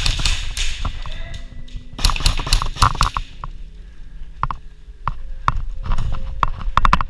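Airsoft guns firing: groups of sharp snapping shots in irregular bursts, densest near the end, over rustling.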